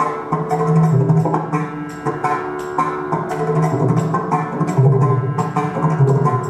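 Instrumental music: tabla beats under held melodic notes.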